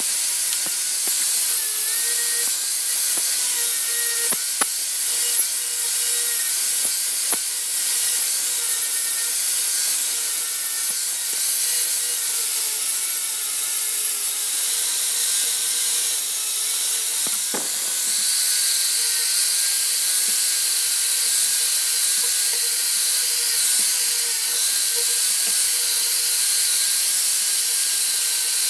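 Angle grinder running steadily with a cup brush scrubbing oxidation off a brass oil lamp: a constant high brushing hiss over the motor's steady whine, with small clicks and one sharp knock a little past the middle.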